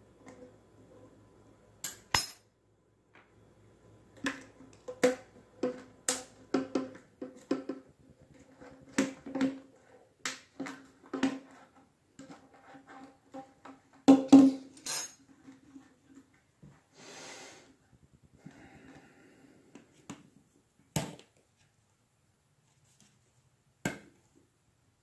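Plastic parts of a flexible P-trap being handled: a string of sharp clicks and knocks from the plastic fittings and corrugated hose, each with a hollow ringing tone. The knocks are densest in the first half and thin out to a few single clicks toward the end.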